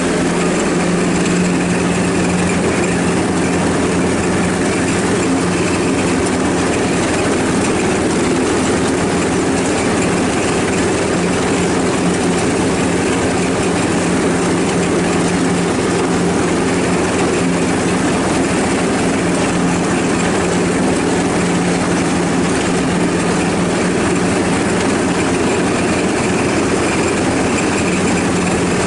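Ride-on lawnmower engine running at a steady, even pitch.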